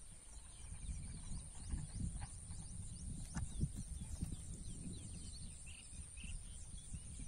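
Open-field ambience: a low, uneven rumble with faint bird chirps and short trills, over a thin, steady high tone.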